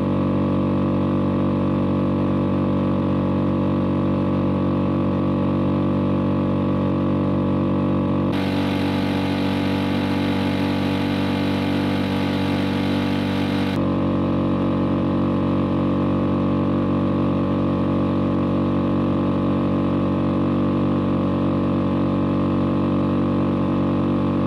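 Suzuki outboard motor running at a steady, unchanging speed, pushing an inflatable boat along the river. A stretch of added rushing hiss from the wake and spray runs from about a third of the way in to just past halfway.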